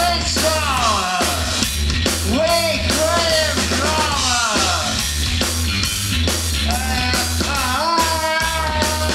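Live punk rock band playing amplified in the hall: electric guitar, bass guitar and drum kit, with a man singing into a microphone.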